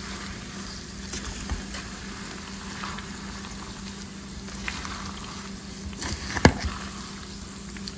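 Hot pork lard with cracklings, sunflower seeds and herbs sizzling in a saucepan while a metal slotted spoon stirs it, with light scrapes and one sharp knock of the spoon against the pan about two-thirds of the way through. A steady low hum runs underneath.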